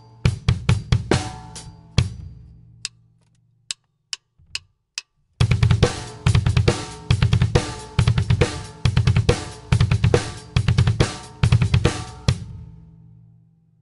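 Drum kit played with a double bass drum pedal: rapid five-stroke single-stroke groups on the bass drum, alternating right and left foot, played together with hand strokes on the kit. It stops briefly, four single clicks count it back in, and the groups then run at a fast even pace before ringing out near the end.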